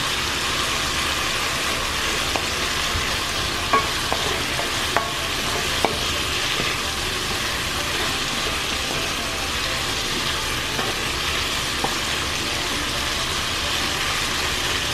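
Chicken pieces sizzling steadily as they sauté in hot oil with onion and garlic in a nonstick pan, stirred with a wooden spoon that knocks against the pan a few times, mostly around the middle.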